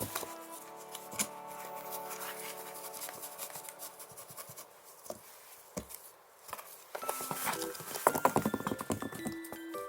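Irregular taps, knocks and scrabbling of a cat pawing at a homemade box toy and cat teaser, thickest near the end, over light background music.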